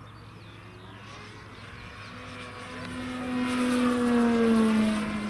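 Electric-powered RC Hawker Hurricane model flying past, its motor and large propeller humming. The sound swells to a peak about four seconds in, then drops in pitch as the plane goes by.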